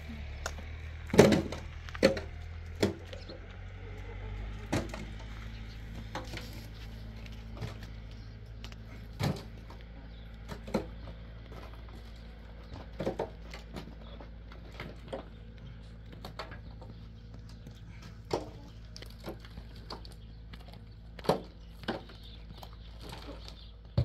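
Irregular sharp knocks and clacks of hard objects, a few seconds apart and loudest about a second in, over a low steady hum.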